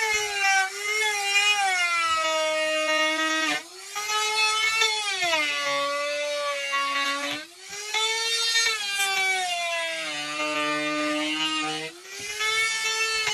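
Compact trim router running at high speed while routing the edge of a wooden door frame. Its high whine sags in pitch as the bit takes load in the cut and climbs back as it frees up, and it drops away briefly three times.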